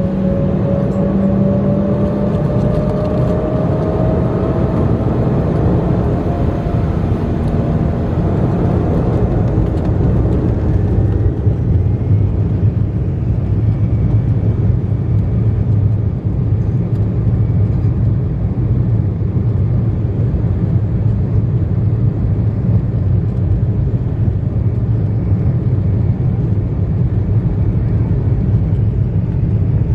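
Embraer 190's GE CF34-10E turbofan engines heard from the cabin over the wing. A whine climbs in pitch over the first several seconds as the engines spool up, then gives way from about ten seconds in to a steady loud low rumble as they run at take-off power.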